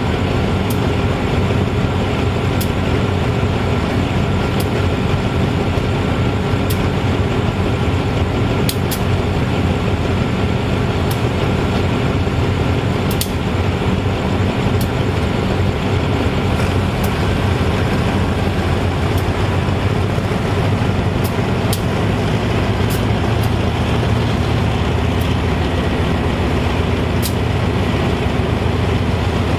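GE-A class diesel-electric locomotive standing with its diesel engine idling: a steady, even engine rumble with a low hum, with faint sharp clicks now and then.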